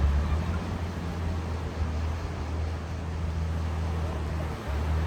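Sea waves washing with a constant hiss, under a steady low motor hum that dips briefly near the end.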